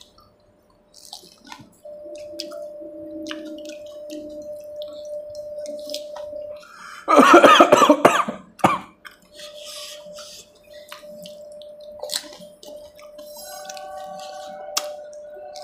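Close-up eating sounds of pani puri: crisp puri shells cracking and wet mouth noises, heard as many short clicks. Partway through comes one loud cough lasting about a second and a half, and a faint steady tone runs under most of it.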